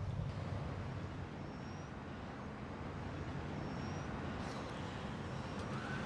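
Outdoor traffic ambience: a steady low rumble of passing vehicles, with a few faint short high chirps over it.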